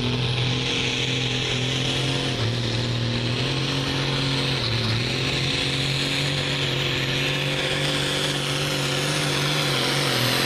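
A John Deere hot farm class pulling tractor's diesel engine at full throttle, pulling a weight-transfer sled, with a steady loud engine note and a high whine above it. The pitch sags briefly twice early in the pull, and right at the end the engine note starts to fall as the throttle comes off.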